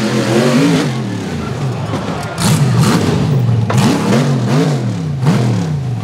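Polaris RZR buggy's engine revving hard up and down, about twice a second, on a steep rock climb, louder from about two seconds in, with a few sharp knocks mixed in.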